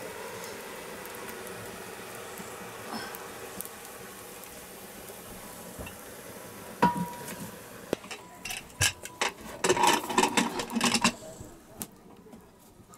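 Metal cooking pots clanking as they are moved on a wood-fired clay stove: one sharp ringing clank about seven seconds in, then a run of knocks and clatter for a few seconds as the pot of greens is swapped for a pressure cooker.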